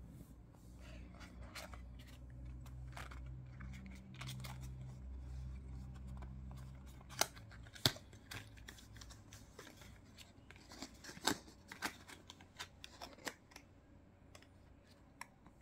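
Unboxing handling sounds: a low hum for about the first seven seconds, then a scattering of sharp clicks and taps, the two loudest about seven and eight seconds in.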